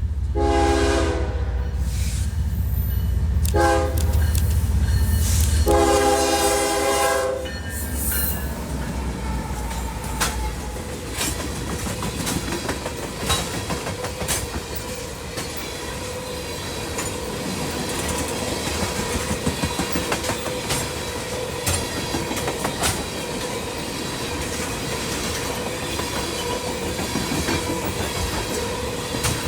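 A Norfolk Southern diesel locomotive's multi-note horn sounds three blasts, a long one, a short one and a longer one, over the deep rumble of its engine. The locomotive passes and the train rolls on, wheels clicking over the rail joints with a steady ringing whine from the wheels.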